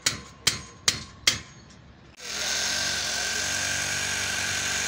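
Four sharp knocks about half a second apart during solar panel mounting work, then from about two seconds in a steady mechanical whir.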